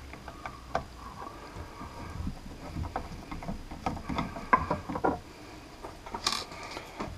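Light clicks and scrapes of a screwdriver working screws out of the side of a Kenwood TS-50 transceiver's metal case, with a sharper click about six seconds in.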